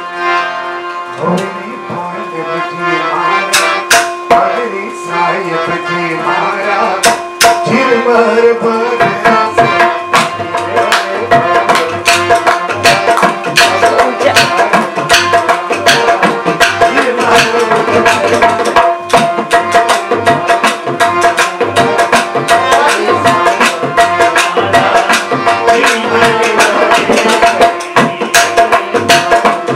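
Rajasthani folk music: a harmonium sounding a steady held melody over dholak drumming. The drum plays a few sparse strokes at first, then settles into a fast, driving rhythm about a third of the way in.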